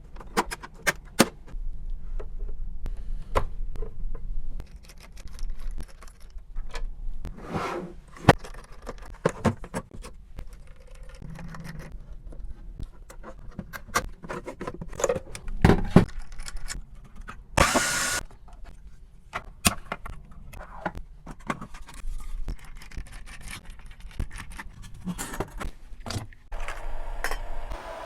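Hand repair work on an Xbox Series X console: scattered clicks, taps and scrapes of tools against plastic and metal parts, over a low steady hum. There is one brief hissing burst a little past the middle.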